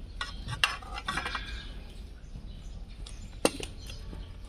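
Large flat hoof-trimming knife clinking against an overgrown donkey hoof as it is cut: two sharp metallic clinks, one about half a second in and one about three and a half seconds in, with a few lighter clicks between.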